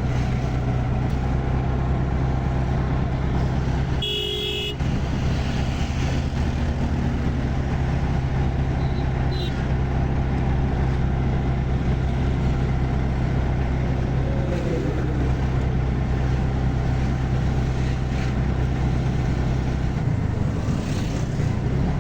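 Moving road vehicle, its engine a steady low hum under road noise, with a brief horn toot about four seconds in.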